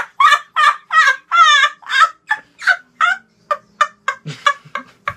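A boy laughing hard in a high-pitched, rhythmic cackle of quick bursts, about three a second, that grow shorter and thinner toward the end.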